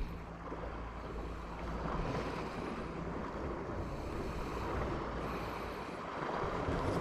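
Wind blowing over the microphone, a steady low rushing rumble.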